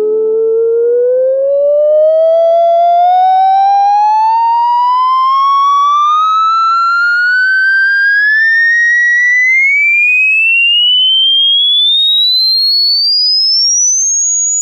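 Electronic test tone sweeping steadily upward in pitch, from a low tone to a high whistle, as in a hearing-range frequency sweep. It is a single tone with faint overtones above it.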